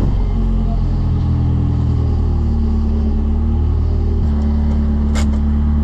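Nissan 240SX (S13) engine running steadily, its note changing about four seconds in. A short sharp hiss comes a little after five seconds.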